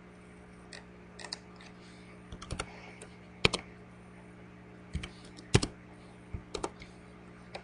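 Irregular clicks of a computer keyboard and mouse, single taps and small clusters, over a faint steady hum.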